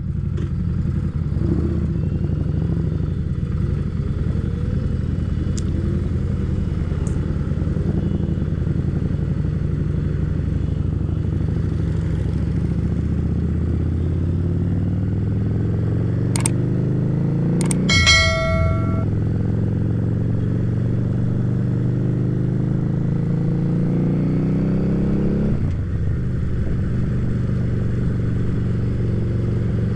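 Harley-Davidson Street Rod's 750 cc V-twin running on the move, its note climbing slowly as the bike gathers speed and dropping back near the end. A sharp click and then a brief horn blast come just past the middle.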